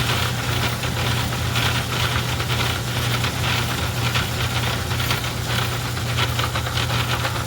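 Craftsman 109 metal lathe running, with a steady motor hum under a grainy, flickering noise, while it takes a light cleanup cut on power feed.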